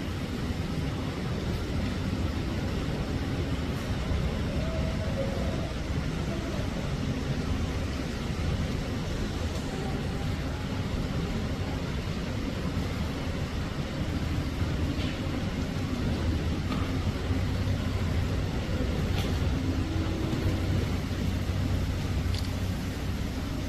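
Steady low background rumble, a constant noise with no clear source, with a few faint ticks in the second half.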